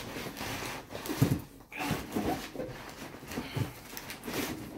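Packaging being handled while a boxed PVC figure is taken out: irregular rustling with a few short, dull knocks.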